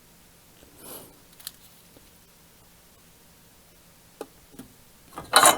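Small clicks and handling noises from tools and parts on a soldering bench. Near the end there is a short, louder noisy burst.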